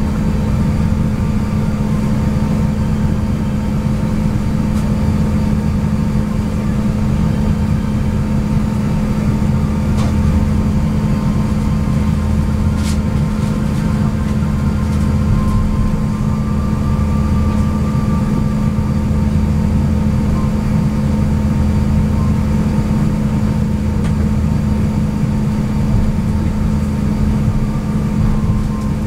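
Steady cabin noise inside an Airbus A350-900 taxiing after landing: a constant low hum from its Rolls-Royce Trent XWB engines at idle and the cabin air, under a deeper rumble that swells and fades. A couple of faint clicks about ten and thirteen seconds in.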